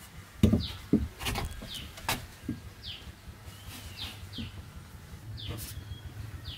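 A bird repeating short, falling chirps, about one a second, over a few sharp knocks and thuds in the first two seconds, the loudest about half a second in.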